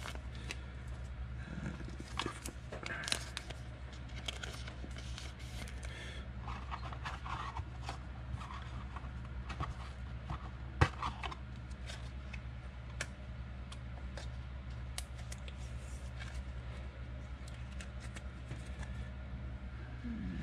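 Trading cards and clear plastic card holders handled by hand: light scrapes and small clicks, one sharper click about eleven seconds in, over a steady low hum.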